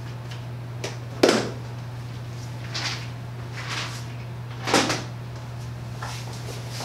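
Rummaging through workshop storage drawers: a handful of separate knocks and clunks as drawers and bins are opened, shut and shifted, the loudest about a second in. A steady low hum runs underneath.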